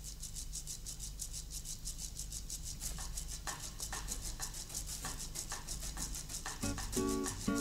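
Background music opening: a steady shaker-like rhythm over a low hum, with short plucked notes coming in about three seconds in and a fuller melody joining near the end.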